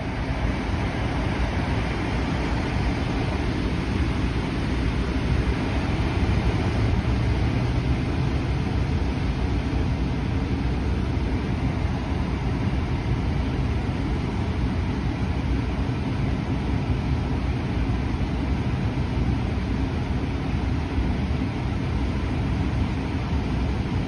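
Tesla Model 3's cabin HVAC blower blowing air steadily out of the dash vents on the service-menu HVAC performance test, in its first, cold-air stage.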